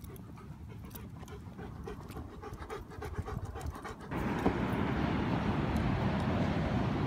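Rottweiler panting. About four seconds in, a steady, louder rushing noise cuts in abruptly.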